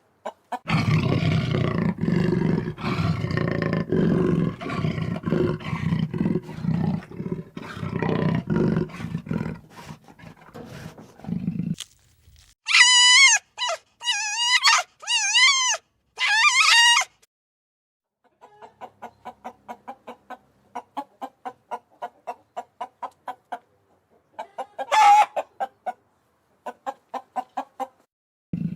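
A series of farmyard animal calls: about twelve seconds of low, rapidly repeated grunting calls, then a rooster crowing four short times, then a hen clucking quickly, with one loud squawk near the end.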